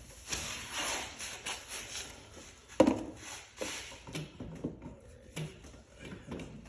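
Hand tools and parts being handled in a car's engine bay: irregular rustling and light clicks, with one sharp knock about three seconds in.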